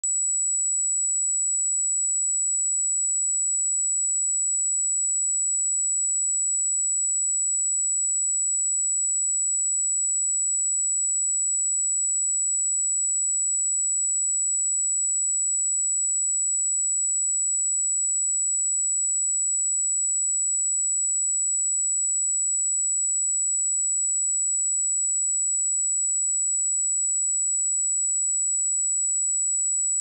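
A 7854 Hz pure sine-wave test tone: a single high-pitched note held steady at constant level.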